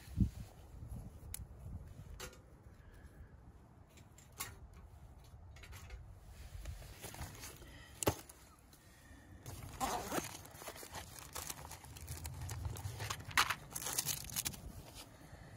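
Rustling, crinkling and scattered clicks of camping gear being handled: a fabric pouch being opened and a box of matches taken up beside a small folding twig stove. The loudest bursts of rustling come about ten seconds in and again near the end, over a low steady rumble.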